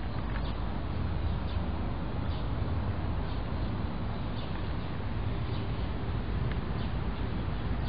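Steady outdoor background noise, heaviest in the low range, with a few faint short high chirps scattered through it.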